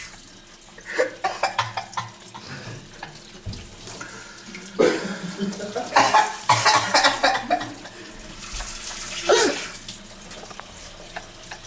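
Kitchen tap running into a steel sink while a man bent over it coughs and splutters in several harsh bursts, the longest run in the middle, as he tries to clear a mouthful of dry cinnamon.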